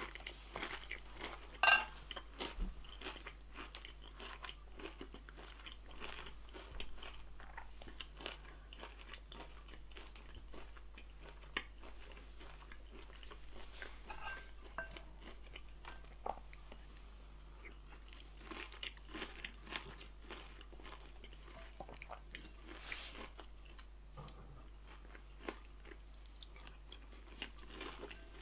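Close-up chewing and crunching of food, with one sharp, ringing clink about two seconds in.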